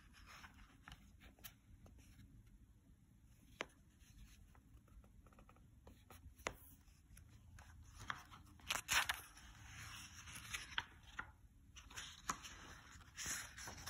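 Faint paper rustling and scraping as the pages of a large picture book are handled and turned, with a few light taps before it. The rustling comes in short clusters, mostly in the second half.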